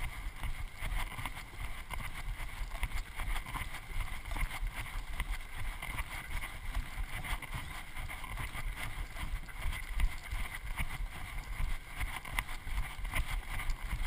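Wind and movement rumbling on the microphone of a body-worn camera, with footsteps crunching irregularly on a dirt and gravel trail.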